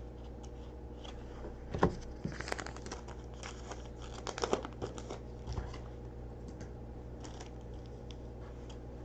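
Foil trading-card pack wrapper crinkling and tearing, with cards being handled, over a steady low hum. The rustling comes in irregular spurts with a knock about two seconds in, and grows quieter after about six seconds.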